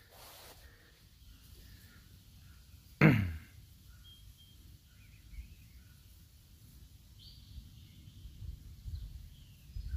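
Faint bird calls over a low, steady background rumble, with one short, loud sound about three seconds in that falls steeply in pitch.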